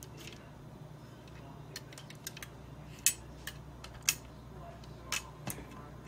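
A few sharp, light metal clicks and taps from handling a graphics card's metal cooler and bracket during disassembly, over a steady low hum.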